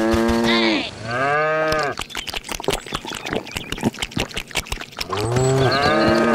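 Cow moo sound effects: two drawn-out moos in the first two seconds and another starting near the end, with a stretch of rapid, irregular clicking in between.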